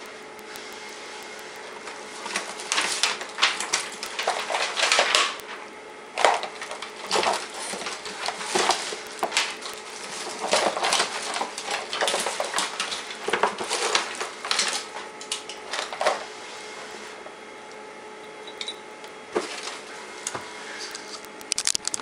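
Someone rummaging by hand through a clutter of hard objects, searching for a test cable: irregular clattering, knocking and shuffling in clusters that die down after about sixteen seconds, with a few last knocks near the end, over a steady background hum.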